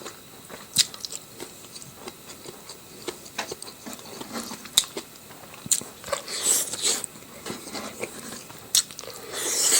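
A person eating close to the microphone: chewing and biting, with scattered sharp clicks and a few longer hissy sounds about six and nine and a half seconds in.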